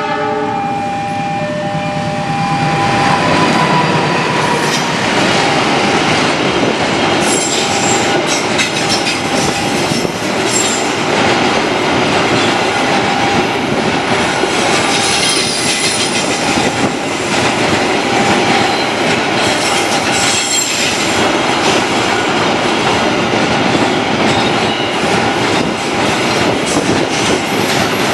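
CC206 diesel-electric locomotive sounding its multi-tone horn for the first couple of seconds as it reaches the crossing. A long container freight train then rolls past at speed: a continuous loud rumble and clatter of wheels over the rail joints, with wheel squeal coming and going.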